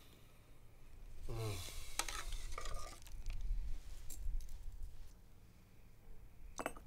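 Metal ladle stirring and clinking in an aluminium saucepan, then ladling liquid into an enamel mug. It makes scattered light clinks and scrapes.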